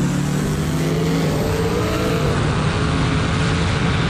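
Car engine pulling hard under acceleration, heard from outside the car's body. Its note climbs for about the first two seconds, then is swamped by a steady rush of wind and road noise.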